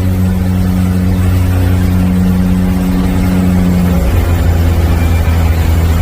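Seaplane's propeller engines running loudly: a steady hum that gives way to a rougher low rumble about four seconds in.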